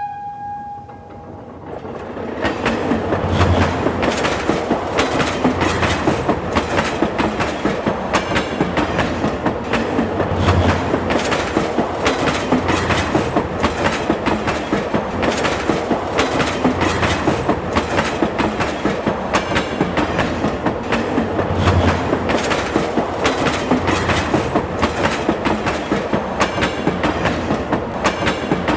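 A train running on rails, its wheels clattering over the rail joints in a rapid, steady clickety-clack that builds about two seconds in. A train horn sounds briefly at the very start.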